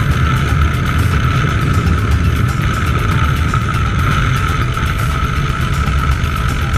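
Honda NC700X's parallel-twin engine running steadily at road speed, mixed with wind rush and the rumble of knobby Continental TKC 80 tyres on loose gravel. A steady high whine sits over the engine note.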